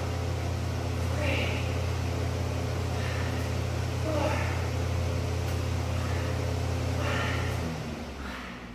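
A steady low motor hum that winds down and stops near the end. Over it come four sharp, voiced exhales from a woman working through kettlebell reps.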